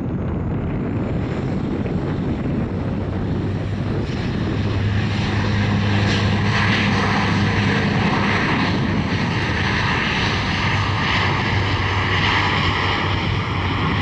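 Dash-8 Q400 turboprop airliner's two Pratt & Whitney PW150A engines and six-blade propellers running, with a steady low propeller drone. It grows louder about five seconds in.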